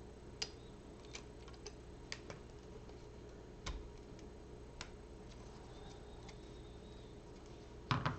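Scattered light clicks and taps of hard LEGO Technic plastic parts being handled and fitted, at irregular intervals, with a soft knock about four seconds in and a louder cluster of clacks near the end.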